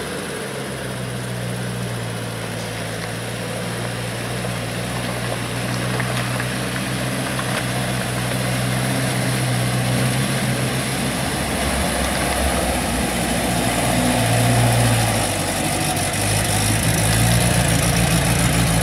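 UAZ off-road vehicle's engine running steadily as it fords a shallow river, water splashing around its front wheels. The engine grows gradually louder as the vehicle comes out onto the bank and passes close by near the end.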